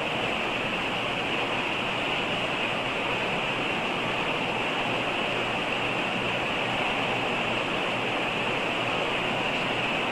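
Steady, even hiss with no other sound in it, a bright band in the upper-middle range; the recording's background noise while the congregation is silent.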